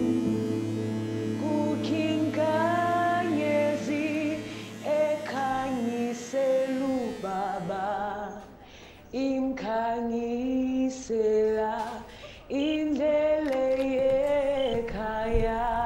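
A song playing: a woman's voice singing a melody over held, sustained chords, with brief pauses between phrases.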